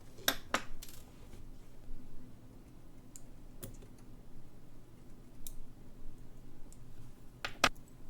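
Small sharp clicks and taps of watchmaker's tools and tiny parts while a vintage Jaeger-LeCoultre alarm clock movement is taken apart. There is a quick pair of clicks at the start, single clicks a few seconds in, and a loud double click near the end.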